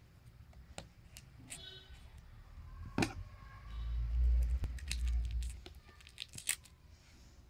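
Clear plastic shrink wrap on a smartphone box being cut and peeled off: scattered crinkles and clicks, a sharp knock about three seconds in, and a low rumble for about two seconds in the middle.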